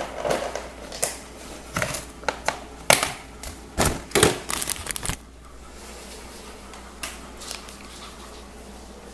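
Handling noise as a plastic takeout salad container is set down and the camera is picked up and moved: a run of sharp clicks, knocks and rustles over the first five seconds, then only a faint steady hum.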